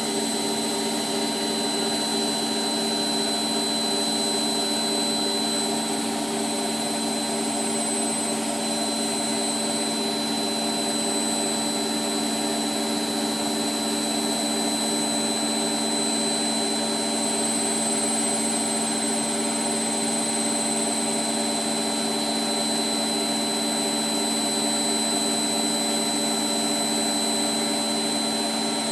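Hotpoint WMF720P washing machine spinning at a steady speed with suds still in the drum: a steady motor whine with a high thin tone over it, unchanging throughout.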